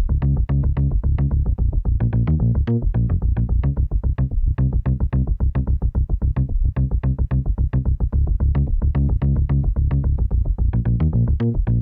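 Electronic 'circuit' sound effect: a rapid, uneven train of sharp clicking pulses, several a second, over a deep buzzing drone.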